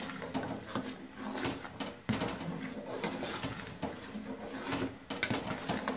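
A spoon stirring in an aluminium pot, knocking and scraping irregularly against the metal as jaggery is dissolved in hot water.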